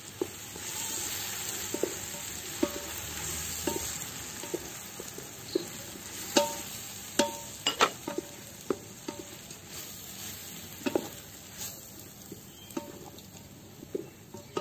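Onion-tomato masala sizzling in a steel pot, louder in the first few seconds, while a wooden spoon stirs it and knocks against the pot again and again, the steel ringing briefly after the harder knocks.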